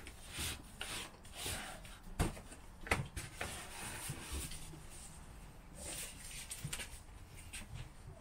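Cardboard box being slid and pulled down off a high storage shelf: scraping and rubbing of cardboard against the shelf and other boxes, with a couple of sharp knocks about two and three seconds in.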